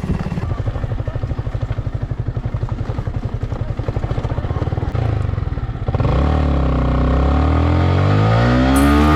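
Motorcycle engine running at low revs with a fast, even pulsing beat; about six seconds in it gets louder and smoother, its pitch dipping and then rising as the bike rides on.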